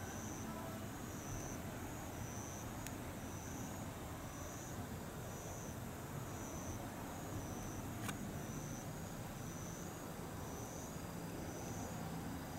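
Distant Ohmi Railway electric train running, heard as a steady low rumble. Over it, insects chirp high and thin about once a second, and there are two faint clicks.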